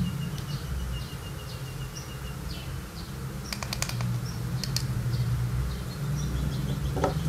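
Birds chirping in the background over a low rumble, with a quick run of sharp clicks about halfway through and a single click near the end as a box vape mod is handled.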